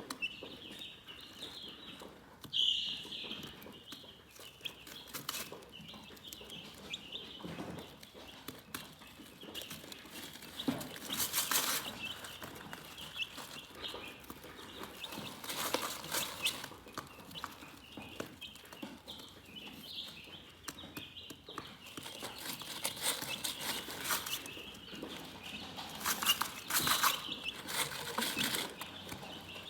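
Chickens chirping: many short, high chirps repeating throughout, with a few brief bursts of rustling now and then.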